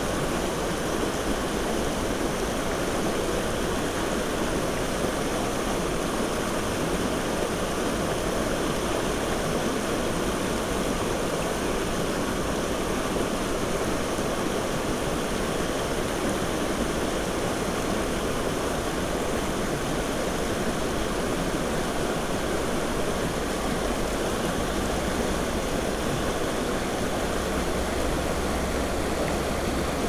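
Creek water rushing steadily over a rocky riffle of white water.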